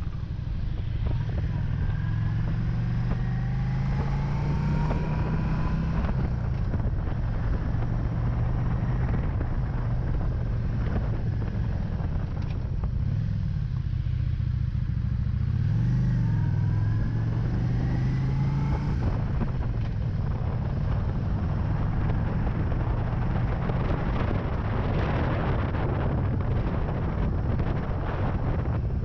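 Cruiser motorcycle engine running while riding, its pitch rising as it accelerates, easing off about halfway through, then climbing again. Wind rushes over the microphone, strongest near the end.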